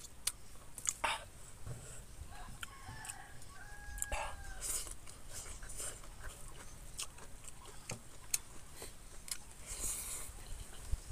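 Close mouth sounds of a man eating rice and boiled carabao skin with his hands: wet lip smacks and chewing clicks throughout. A few short, high, whine-like animal calls come about two to four seconds in.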